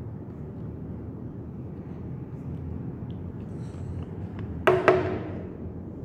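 Steady low rush of a Panasonic CS-U10TKP inverter split air conditioner's indoor unit running, broken about four and a half seconds in by two sharp knocks a fraction of a second apart, each with a short ringing tone.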